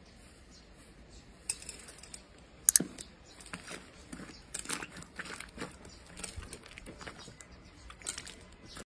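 Hands squeezing and kneading soft slime, giving a run of sharp sticky clicks and crackles. It starts about a second and a half in, and the loudest snaps come near the three-second mark.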